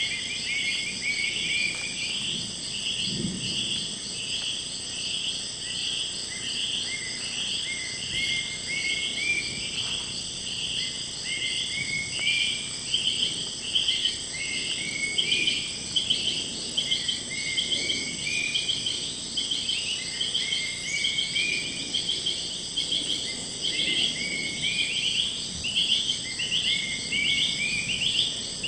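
A dense chorus of rainforest insects: a steady high-pitched buzz with a rhythmic chirping repeated about twice a second, and short rising notes beneath it.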